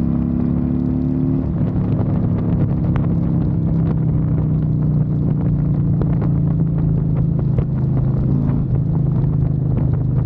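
Harley-Davidson Road Glide V-twin running through a Thumper Moto stainless 2-into-1 exhaust, with a Screaming Eagle Stage 2 511 cam. The note is steady and steps down in pitch about a second and a half in.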